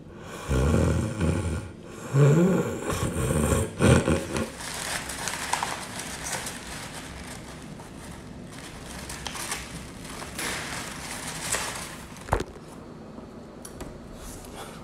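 A person snoring loudly, three long rasping snores in the first four seconds. Then about ten seconds of softer noise, with a single sharp click near the end.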